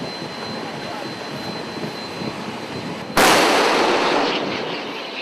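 A distant explosion about three seconds in: a sudden loud blast whose rumble fades over the next two seconds, heard over steady wind noise on the microphone.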